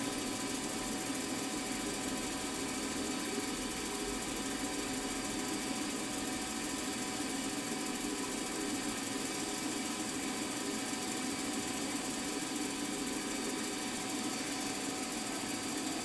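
Milling machine spindle running steadily at about 1300 RPM while a long-series 1.8 mm drill is fed gently into the part.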